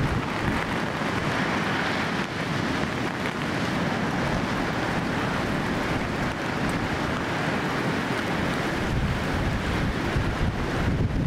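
Wind buffeting the microphone with a low rumble, over the steady wash of heavy storm surf breaking on the shore.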